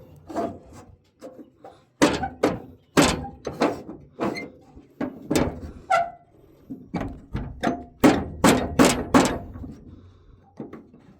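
Irregular series of heavy thunks and metallic clanks, some with a brief ring, from hands working at the hatches and fittings of a large excavator.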